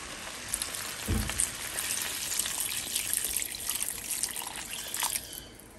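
Water poured into a hot glazed clay cazuela of frying textured soy and diced vegetables, hissing and sizzling as it hits the pan. There is one low thump about a second in, and the pour fades out about five seconds in.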